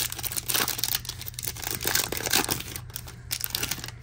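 Foil wrapper of a Topps Chrome baseball card pack being torn open and crinkled by hand, a quick run of ripping and crinkling that dies down near the end.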